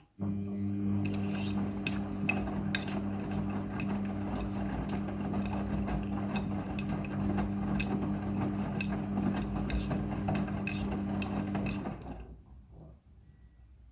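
Midea front-loading washing machine turning its drum during the rinse: a steady motor hum with irregular clicks and knocks, stopping suddenly about twelve seconds in.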